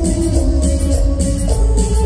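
Live Mexican grupero band playing through the arena's PA, heard from the audience: electric guitars, bass, keyboards and drums, with heavy bass and held keyboard chords and no singing to speak of.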